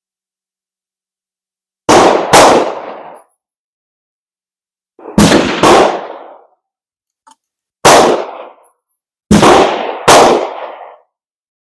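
Gunshots on an outdoor range: seven sharp reports, mostly in pairs about half a second apart, each with a short rolling tail.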